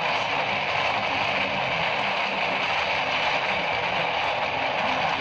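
Sound effect of collapsing masonry walls: a steady rushing, hissing noise of crumbling stone and debris, with no separate impacts.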